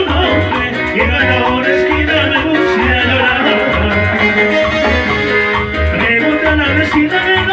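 Latin dance music played by a band, with a steady pulsing bass beat under dense instruments.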